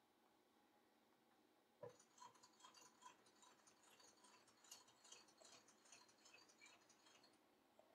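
Faint: a light knock about two seconds in, then a run of fine ticks and crackles as a blade cuts along a traced line through thick veg-tan leather, stopping shortly before the end.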